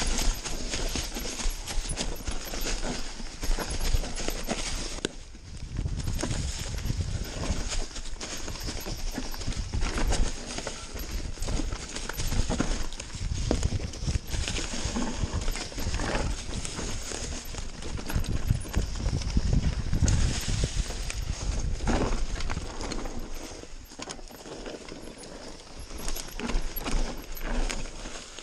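Mountain bike clattering and rattling at speed over a rough dirt trail, with irregular knocks as it hits bumps and roots over the rumble of tyres on dirt and leaves.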